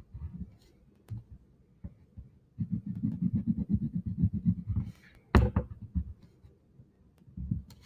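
Black wax crayon rubbing back and forth on paper over a tabletop, going over a letter's outline to thicken it. The strokes come in bursts, the longest a run of quick strokes for about two seconds in the middle, with one sharp knock a little past halfway.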